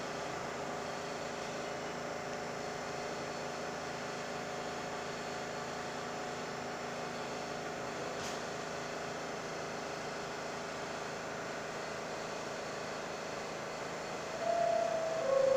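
New York City subway train standing at the platform, its ventilation and auxiliary equipment giving a steady hum in the station. Near the end the door chime sounds its two descending notes, the signal that the doors are about to close.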